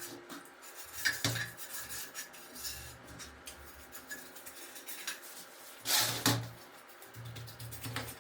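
Workshop handling noises: scattered clicks and rubbing from tools and parts being worked by hand, with a louder scraping burst about six seconds in.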